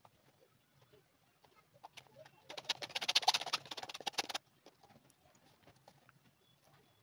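A hand tool scraping the crumbled remains of a disintegrated rubber sole off the underside of a sandal: a burst of rapid scratchy scraping for about two seconds in the middle, with faint scattered picking ticks around it.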